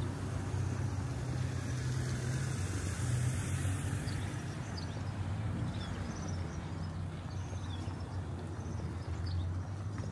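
A motor vehicle's engine running with a steady low hum. A high hiss swells and fades about two to four seconds in.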